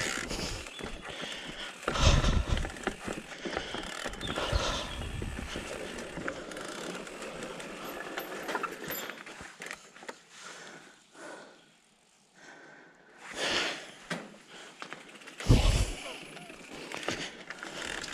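Mondraker Level R e-mountain bike riding down a rocky forest trail: tyres crunching over dirt and stones and the bike rattling, with heavy knocks over bumps about two seconds in and near the end. It goes almost quiet for a moment about twelve seconds in.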